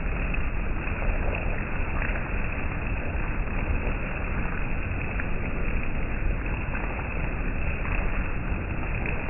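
Rain falling steadily: an even hiss of rainfall with occasional faint drip ticks.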